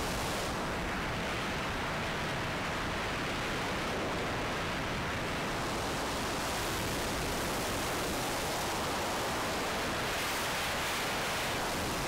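Steady rush of wind over the onboard camera's microphone of an RC plane in flight, a constant hiss that turns brighter about ten seconds in.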